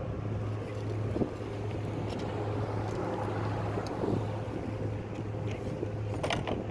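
Wind on the microphone over a steady low hum, with one sharp click near the end.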